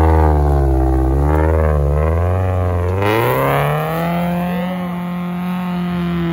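Off-road race vehicle's engine revving hard under load, its pitch wavering up and down, then rising and holding steady from about three to four seconds in. The vehicle has a characteristic creaky sound.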